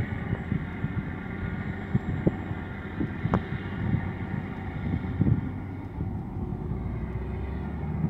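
Heavy diesel earthmoving machines running together: a Terex TA40 articulated dump truck tipping its load and a Komatsu D65PX crawler dozer working beside it. There is a steady engine rumble whose note eases off about three quarters of the way through, with irregular low thumps and knocks.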